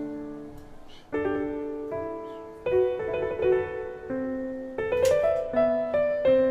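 Slow solo piano music from a film soundtrack, single held notes and chords changing about once a second. A sharp knock of a knife on a wooden cutting board about five seconds in.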